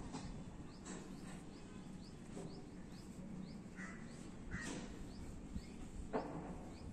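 Outdoor background with a bird repeating a short, high chirp about twice a second, and a couple of louder calls around the middle.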